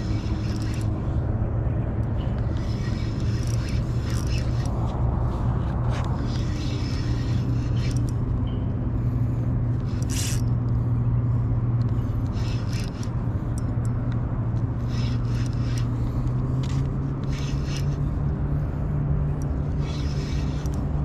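Steady low motor hum with a slight shift in pitch about two-thirds of the way through, with short scrapes and clicks on top.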